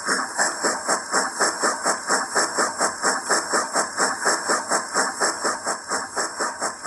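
Zimo sound decoder in an OO gauge Hornby D16/3 model steam locomotive playing steam exhaust chuffs. The chuffs come at a steady beat of about five a second, each with a hiss.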